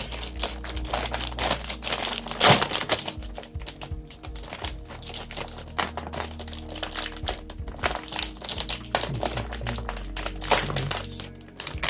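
Packaging of a boxed keyboard being handled and opened: irregular rustling, crinkling and sharp clicks and taps, with a faint music bed underneath.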